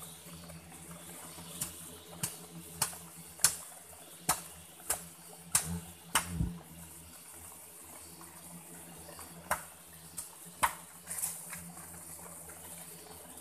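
A digging tool striking into soil and leaf litter: about ten sharp strikes, roughly one every half second or so in the first half, then a pause and two more later on.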